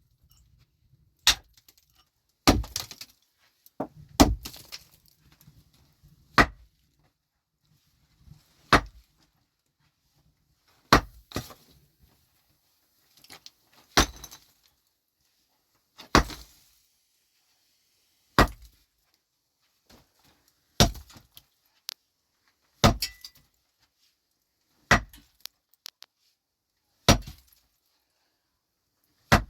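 Heavy hand-tool strikes, about one every two seconds, some followed by a brief clatter of loose material.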